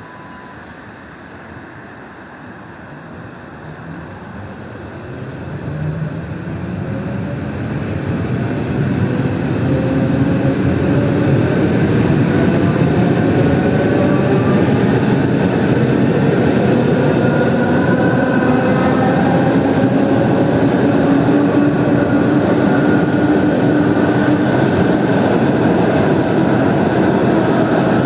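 EP2D electric multiple unit passing close by: it grows louder over several seconds, then holds a steady rolling rumble. Over it the whine of its traction motors rises steadily in pitch as the train gathers speed.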